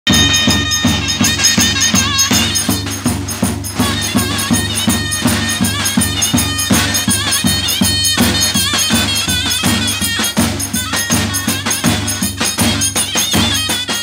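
A zurna playing a wavering, ornamented folk melody over two davul bass drums beating a steady, quick rhythm: Turkish zurna-and-davul wedding music.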